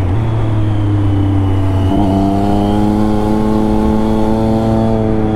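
Triumph Daytona 675's inline-three engine running loud and steady under way; about two seconds in its note drops sharply with an upshift, then climbs slowly as the bike accelerates.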